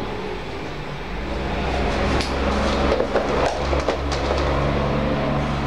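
A low, steady rumble that swells in loudness over the first two or three seconds, with a few sharp clicks in the middle.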